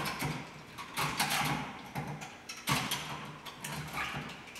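Hand blender running in a bowl of water-soaked tissue paper, churning it into a fine pulp. A steady motor hum with a sloshing, chopping noise that surges louder about a second in and again near three seconds.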